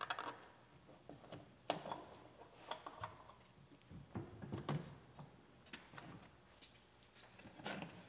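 Plastic wiring-harness clips being squeezed and unclipped from the inside of a car door: light clicks and snaps, roughly one every second, with handling rustle between them.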